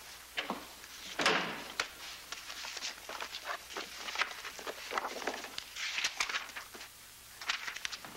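A door closing about a second in, followed by scattered footsteps and small knocks.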